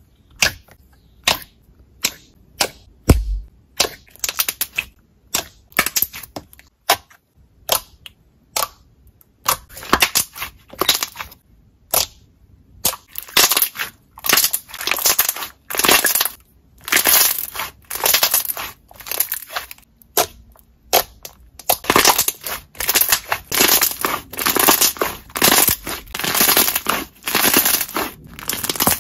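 Slime being poked and squeezed by hand: sharp wet pops of trapped air, about two a second, for the first twelve seconds or so. After that come longer crackling squelches as the slime is stretched, folded and squished.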